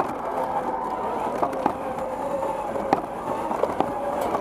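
Onboard sound of a competition robot driving: its electric drive motors and gearboxes whine, shifting in pitch as it speeds up and slows, with scattered knocks and rattles from the chassis.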